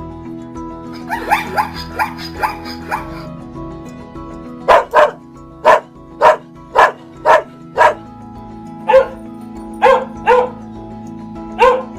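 A dog barking over steady background music: a few short yips first, then a quick run of about seven loud barks, roughly two a second, and a few more barks near the end.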